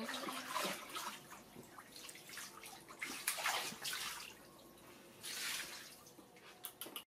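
Water splashing and sloshing in an inflatable paddling pool as a baby macaque swims and paddles through it, with a person's hand splashing in the water at the start; the splashes come irregularly, the loudest about three seconds in.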